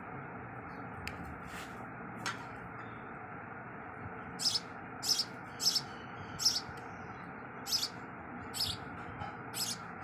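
Sparrow chicks about 25 days old chirping: a few faint short chirps at first, then a run of about nine louder short high chirps from about four seconds in, roughly one a second. These are begging calls given while the chicks are hand-fed from a syringe.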